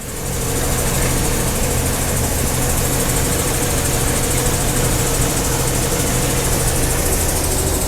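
Farm machinery engine running steadily. It comes in abruptly and reaches full level within about half a second.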